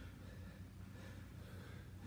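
Faint heavy breathing of a man winded from exercise, with a couple of breaths about half a second and a second and a half in, over a steady low room hum.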